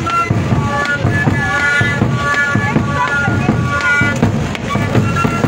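Roncadora music: a pincullo, the Andean end-blown flute, plays a high melody in held notes over the steady beat of a caja drum.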